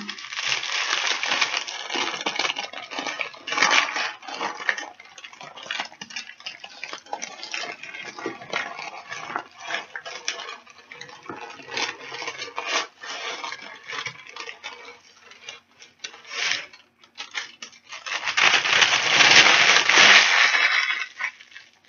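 Baking paper being pulled out from under loose baked granola on a metal baking tray, crackling and rustling as the granola clusters slide off it onto the tray. Near the end the paper is scrunched up into a ball, the loudest crackling.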